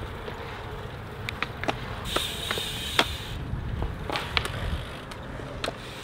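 BMX bikes rolling along a concrete path: a steady low tyre-and-wind rumble with scattered clicks and rattles from the bikes, and a brief hiss about two seconds in.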